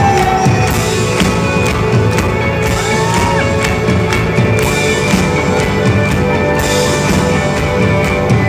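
Rock band playing live.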